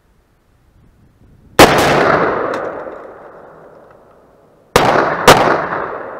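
Gunfire in a rifle-to-pistol transition drill: an AR-15 rifle fires two quick shots, then after a pause of about three seconds a 1911 pistol fires twice, about half a second apart. Each volley is followed by a long, fading echo.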